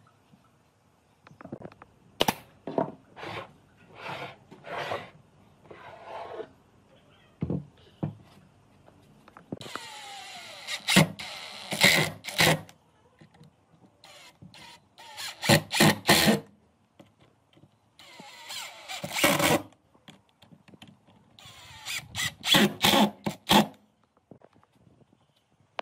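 Wooden knocks and taps in the first few seconds, then a cordless drill driving screws into pine boards in three bursts of a few seconds each, with sharp knocks inside them.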